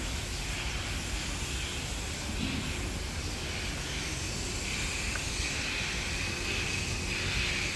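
Steady background noise with a low rumble, joined about halfway through by a faint, thin high-pitched buzz.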